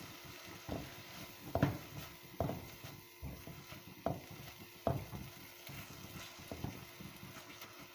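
Spatula stirring and scraping a thick tomato-and-spice masala around a non-stick frying pan, about one scrape a second, over a faint steady sizzle. The masala is being fried down until the tomatoes break into a paste.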